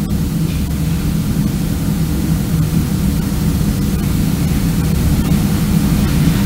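Steady, loud static-like hiss with a low rumble underneath, with no voice over it.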